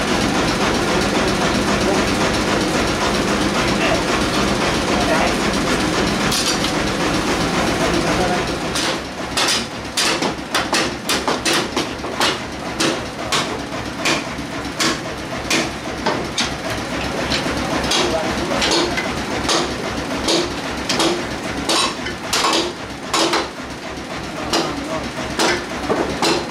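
Sawmill machinery running steadily. About nine seconds in, a long run of sharp, irregular knocks and clacks starts, several a second, while the machine runs on more quietly beneath them.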